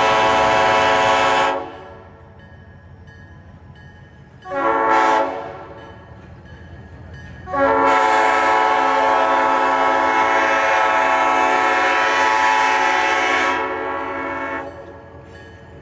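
Multi-chime locomotive air horn on a GP30 blowing a chord in three blasts: one that cuts off about a second and a half in, a short toot around the middle, and a long blast of about six seconds that tapers off near the end. A low steady rumble fills the gaps between blasts.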